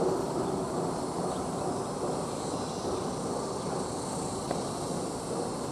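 Steady, distant jet-engine noise from airliners taxiing, with a faint high insect buzz over it.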